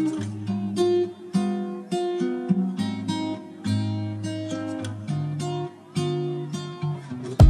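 Background music of acoustic guitar, plucked notes played one after another at an easy pace.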